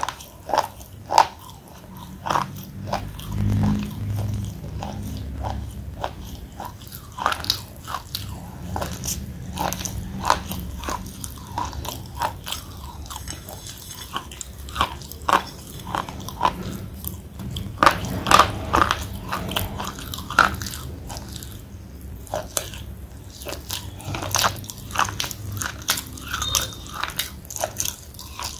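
Thick slate pencil being bitten and chewed right at the microphone: a run of sharp, irregular crunches as the pencil is broken and ground between the teeth, with pasty chewing in between.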